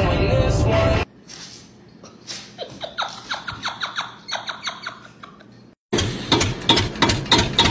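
Music for about the first second. It cuts to a quick run of short, high squeaks. From about six seconds in comes a loud, rapid, even knocking, like a small engine idling.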